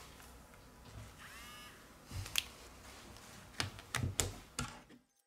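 Faint clicks and taps of a smartphone being handled on a bench, with a brief faint squeak about a second in; the sound cuts off suddenly near the end.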